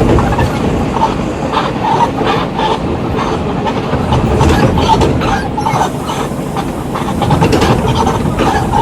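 Volkswagen Volksbus 17.230 EOD bus on the move: engine noise under a constant clatter of irregular rattles and knocks from the body and fittings.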